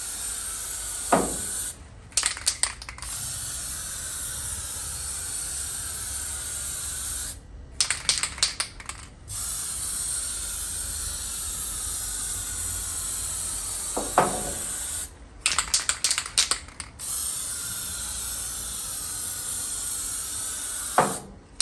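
Aerosol can of etch primer spraying in long steady hisses, stopping three times for a second or two; during each break there are quick bursts of rattling clicks.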